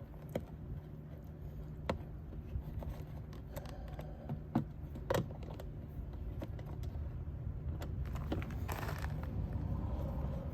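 Scattered light clicks and taps of small plastic and metal parts being handled during work on a car door lock actuator, with a short scraping rustle about eight and a half seconds in.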